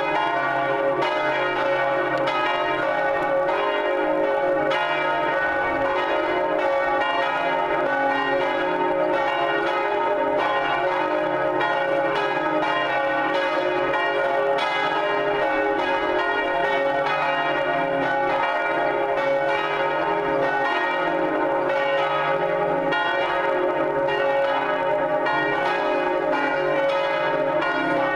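Three Cornille-Havard bronze church bells (cast 1905 and 1954) swinging together in full peal, their strikes overlapping in a steady, continuous ringing.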